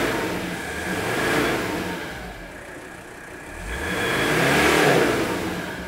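Mercedes-Benz 300 TD's OM617 five-cylinder turbo diesel, heard at the tailpipe, revved up and let back down several times; the longest and loudest rev climbs about four seconds in and falls away near the end.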